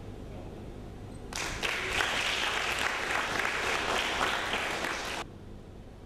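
Audience applauding, many hands clapping. It starts about a second in and stops abruptly near the end.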